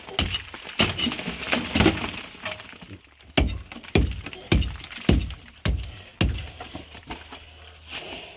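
A hand tool striking a cob (earthen) wall over and over, breaking pieces loose, with a steady run of blows a little under two a second through the middle.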